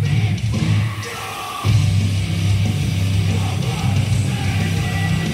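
Loud heavy rock music with a strong bass line. The bass drops out briefly about a second in, then comes back in full.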